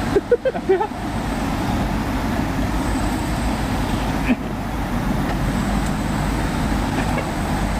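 Steady hum of road traffic going by, with a few brief snatches of voices in the first second and a short click a little past halfway.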